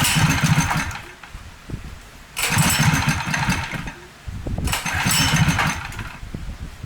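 Predator 212 single-cylinder four-stroke engine running through a bare exhaust pipe with no muffler. It is revved three times, dropping back to a lumpy idle between the revs.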